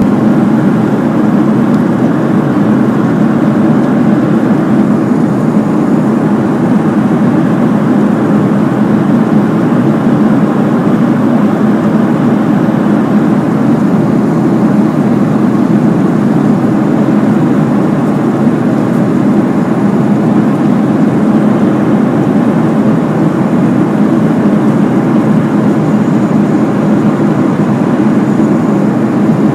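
Steady cabin noise of an airplane in flight: a constant low drone of engines and rushing air, unchanging throughout.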